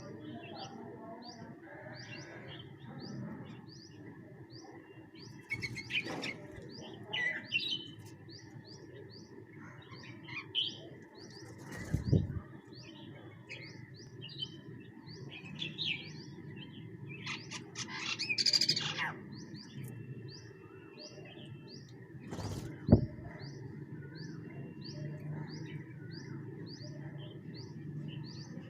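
Birds chirping and calling as they feed: a steady run of short high chirps about twice a second, with louder, harsher calls about six and eighteen seconds in. Two sharp thumps about twelve and twenty-three seconds in.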